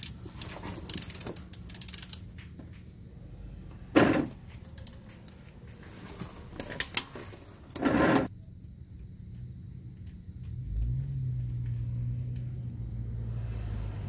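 Metal tool clatter and clicks of a socket wrench working at an oil-pan drain plug, with two loud short scrapes about four and eight seconds in. A steady low hum starts in the last few seconds.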